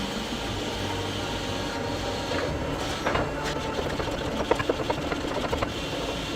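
Forge-shop machinery running with a steady hum, and a quick run of sharp metal knocks from about three seconds in to near the end, as steel is worked at welding heat.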